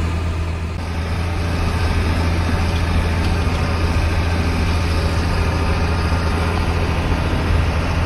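John Deere tractor's diesel engine running with a steady low drone, heard from inside the cab while the tractor drives.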